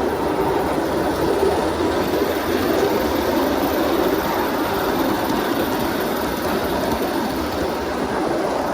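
Rebuilt Aristo-Craft 0-4-0 live steam locomotive, its valves freshly retimed, running steadily with a heavy train on a garden-scale track: steam exhaust and rolling wheel noise.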